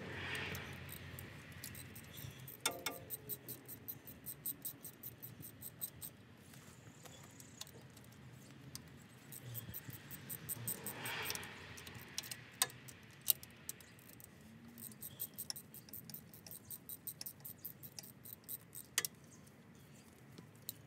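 Socket ratchet clicking in quick runs as the bolts of a Currie Rock Jock 60 differential cover are backed out, with a few sharper metal clinks.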